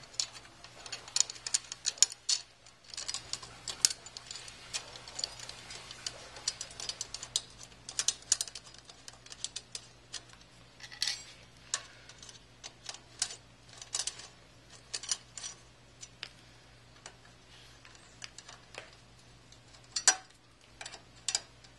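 Scattered light metal clicks and taps as a bolt is worked through a metal shark fin and screwed by hand into a rivet nut in a motorcycle swing arm, with a louder click near the end.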